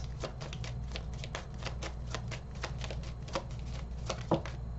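Tarot cards being shuffled by hand: a quick, even run of soft card clicks, several a second, with two louder snaps near the end.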